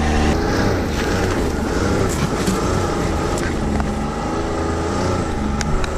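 Ski-Doo Skandic 900 ACE snowmobile's three-cylinder four-stroke engine running under way, its pitch rising and falling again and again as the engine speed changes.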